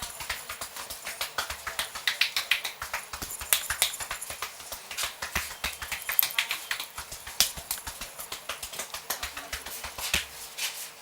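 Hands working a head in a vigorous head massage: quick, dense, irregular taps and clicks of fingers on the scalp, mixed with short bursts of scratching.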